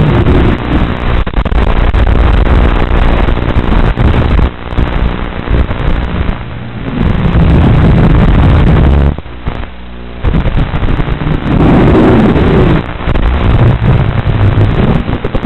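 Mini racing quadcopter's motors and propellers heard loud and distorted from the onboard microphone, surging and easing as it flies, with a brief drop about nine seconds in.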